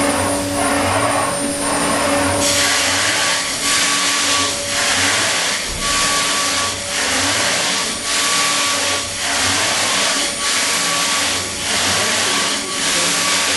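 Kimla BPF1520 CNC milling machine, its 8 kW high-speed spindle cutting a polyurethane foam block: a steady whine over a loud rushing noise that swells and dips about once a second as the head sweeps back and forth across the block.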